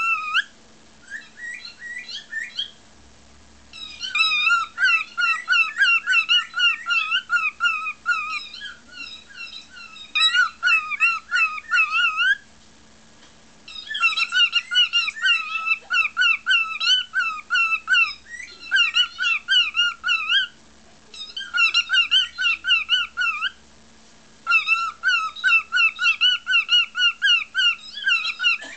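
Cockatiel singing a whistled warbling song of rapid, wavering chirps, in phrases of a few seconds with short pauses between them.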